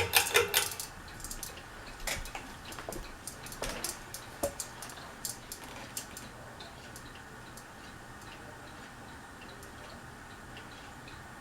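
Fasco Gulf Stream ceiling fan running at medium speed with a low steady hum. There is a cluster of clicks in the first second and scattered ticks over the next few seconds, with a clock ticking faintly behind.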